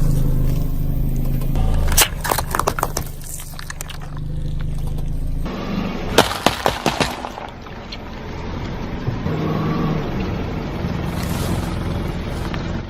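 A vehicle engine running steadily, with short clusters of cracking and crunching about two seconds in and again around six seconds in, as objects are crushed.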